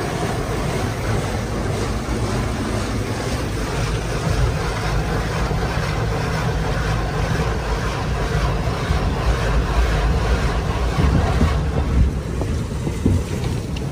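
Automatic drive-through car wash heard from inside the car's cabin: cloth wash brushes and water spray beating against the windshield and body, a steady loud wash of noise with a deep rumble underneath.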